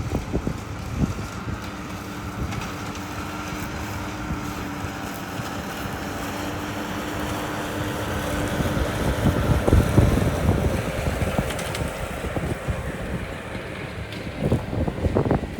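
Aircraft engines running with a steady whine that slowly drops a little in pitch and grows louder to a peak about ten seconds in, with wind buffeting the microphone throughout.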